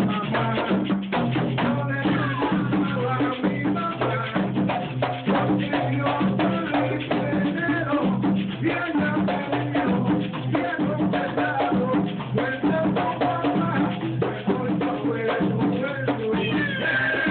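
Live plena: panderos (hand-held frame drums) beating a steady interlocking rhythm, with voices singing over them.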